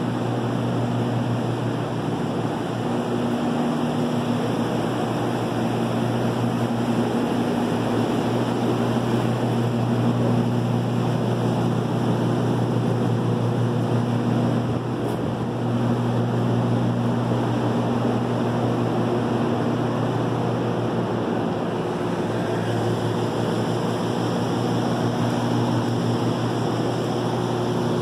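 Steady low mechanical drone: a constant hum with a rushing hiss over it, dipping briefly a few times.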